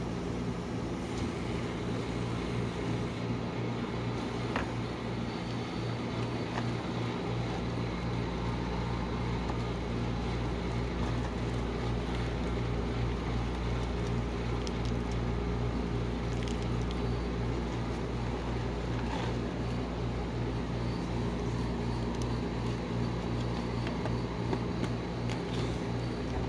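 Steady low electric hum of a rolled-ice-cream cold plate's refrigeration unit running, with a few faint light ticks.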